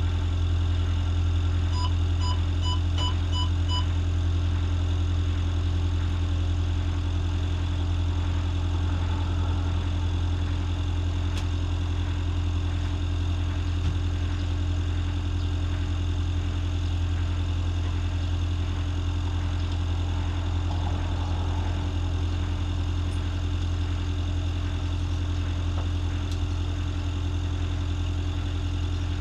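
Motor cruiser's engine running steadily with a deep, even hum. About two seconds in come five quick electronic beeps.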